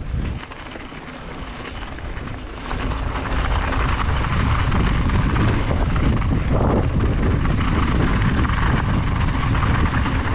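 Wind rush and tyre rumble of a downhill mountain bike descending a wet trail, a continuous roar that grows much louder about three seconds in as the bike picks up speed.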